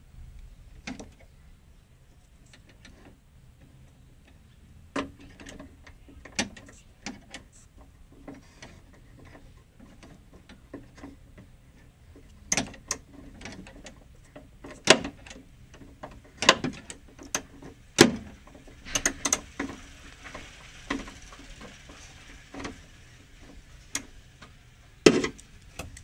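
Ratchet wrench with a socket on an extension working a bolt inside a BMW E36 front door: irregular ratchet clicks and sharp metal knocks, growing louder and more frequent in the second half.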